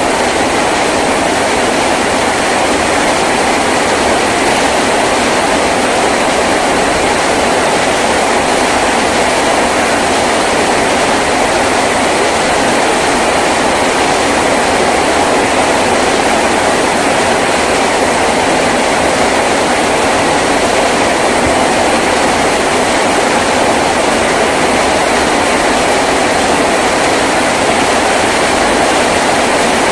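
Heavy rain falling on a tin roof, a loud, steady, even hiss with no let-up.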